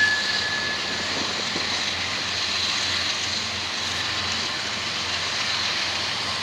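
Loaded coal train rolling past slowly: a steady rush of wheel and rail noise, with wind on the microphone. A brief high squeal sounds at the very start.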